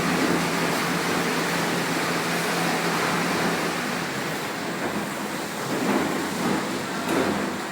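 Automatic ten-head cooking-oil filling machine running: a steady hiss with a low hum, and a few light knocks in the second half.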